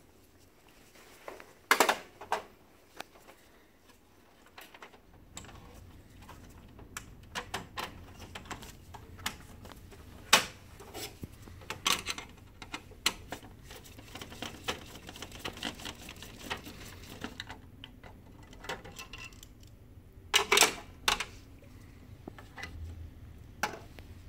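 Scattered clicks, taps and rattles of plastic and metal parts as tray 1 of an HP LaserJet M725 printer is taken apart by hand with a screwdriver. The loudest clusters of clicks come about two seconds in and again around twenty seconds in.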